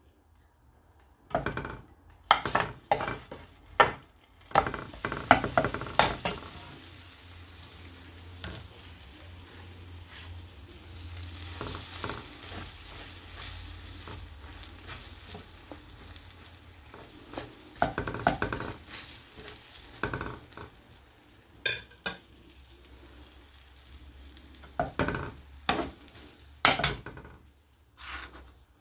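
Buttered bread slices sizzling in a frying pan, with a metal spoon scraping and tapping against the pan. The taps come in runs over the first few seconds and again in the second half, with a steady sizzle between.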